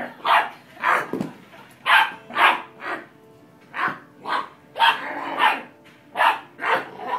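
Doberman puppy barking in play: a quick series of about a dozen short barks, often in pairs.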